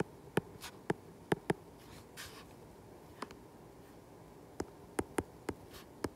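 Stylus tip tapping and clicking on a tablet's glass screen during handwriting. A string of sharp little clicks comes in the first second or so, a few scattered ones follow, and another quick run comes near the end.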